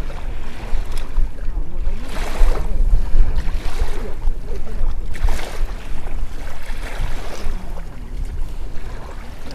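Wind buffeting the microphone with a deep rumble, joined by several surges of rushing, water-like noise, the loudest about two to three seconds in.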